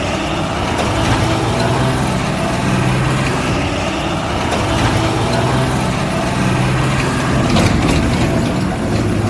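A heavy engine running steadily, like a truck or earth-mover idling, with a low hum that swells and eases every second or two. There are a few sharp clicks about seven and a half seconds in.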